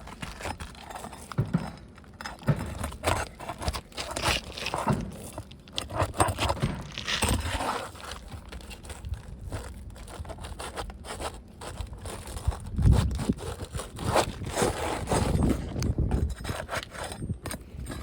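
Pry bar scraping and clicking against 3-tab asphalt shingles and roofing nails as the shingles are lifted and the nails worked out, in irregular strokes with a few heavier knocks.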